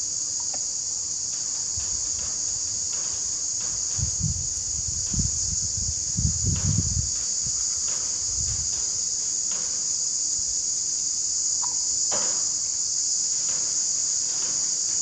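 Steady high-pitched insect chirring, like crickets. A few soft low bumps come in the middle as sealant is dabbed onto the engine's front plate.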